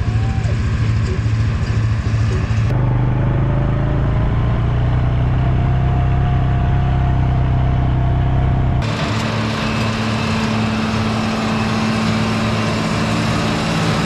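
Farm tractor engines running steadily, with the engine note changing abruptly about three and again about nine seconds in.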